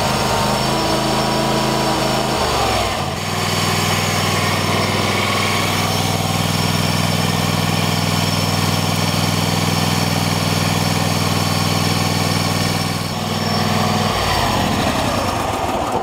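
Kohler Courage two-cylinder lawn tractor engine running steadily just after starting, with the choke cable freshly adjusted to cure hard starting. Its note changes about three seconds in and again near the end, then the engine cuts off suddenly.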